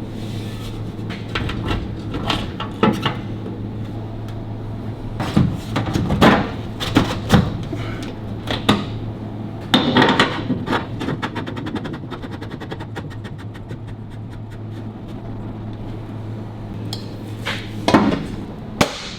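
Irregular metallic clanks and knocks as a fabricated metal spare-wheel clamp is slid onto its bracket and fitted, over a steady low hum.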